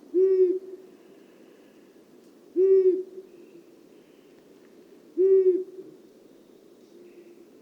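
Long-eared owl giving its low, monotonous 'huh' hoot, three evenly spaced hoots about two and a half seconds apart, with a fourth starting at the very end.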